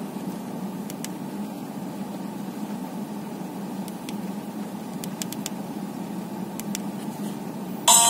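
Steady low hum of a car interior, with a few faint clicks from a Nokia 1110's keys being pressed to scroll its menu, once about a second in and several times near the end.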